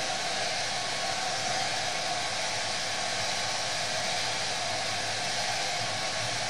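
Handheld hair dryer running steadily on airbrushed paint: an even rush of air with a faint steady whine in it.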